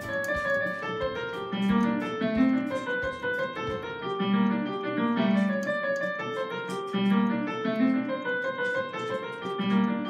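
Digital piano played solo: a steady stream of melody notes over low notes struck again and again in small groups.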